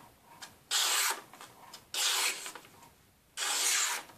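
The Heiko Häß Järven knife's 6 mm O1 (1.2510) carbon-steel blade slicing through thin paper in a sharpness test. There are three strokes about a second and a half apart, each a short, raspy hiss.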